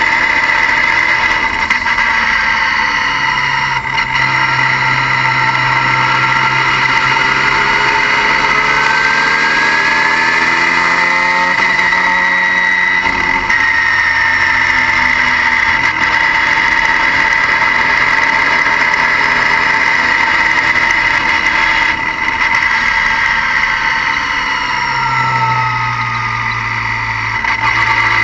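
Engine running, mostly near idle, with a loud, steady high-pitched whine over it and a few gentle rises and falls in engine pitch around the middle. It comes from a vehicle whose turbocharger has failed.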